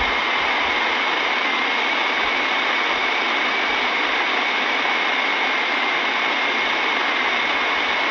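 Loud, steady hiss of static on a broadcast feed, with a faint whistle held at one high pitch throughout.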